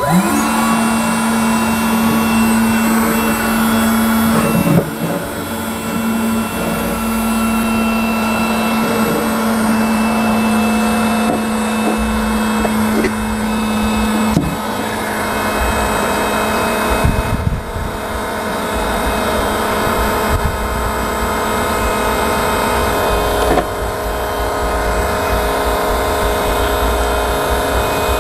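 DeWalt DCE530N cordless heat gun switched on, its fan spinning up and then running steadily with a constant rush of hot air. A steady hum under the airflow stops about halfway through, and there are a few light knocks.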